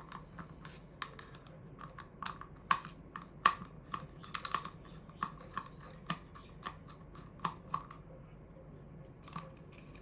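Irregular small clicks and taps of a plastic solar-light housing and its screws being handled and taken apart by hand, with a lull shortly before the end.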